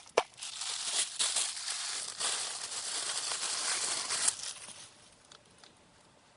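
Plastic toy packaging crinkling as it is handled and opened, a dry crackle lasting about four seconds after a single click, then stopping.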